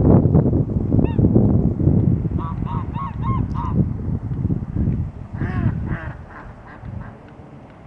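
Geese honking: one honk about a second in, a quick run of five honks around the middle, and a few more calls near six seconds. Under them runs a loud low wind rumble on the microphone that dies down about five seconds in.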